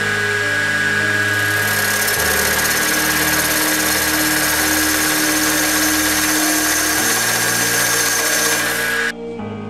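Wood lathe spinning a cherry blank while a hand-held turning tool cuts into it: a steady hiss of wood being cut over the lathe's running hum and whine. It cuts off suddenly near the end.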